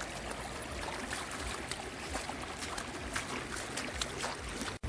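Shallow creek water running over stones, with many small splashes and ticks from dogs wading in it. The sound cuts out for an instant near the end.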